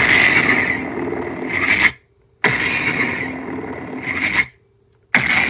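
Lightsaber sound board (CFX, running the Survivor sound font through a 28 mm speaker) powering up and down repeatedly: a sudden ignition burst, a steady hum for about two seconds, then a power-down swell that cuts to silence. This happens twice, and the blade ignites a third time about five seconds in.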